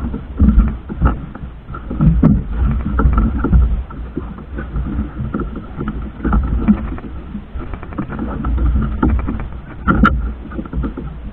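Small motorboat under way: its engine running with a steady drone, wind gusting on the microphone, and scattered sharp knocks.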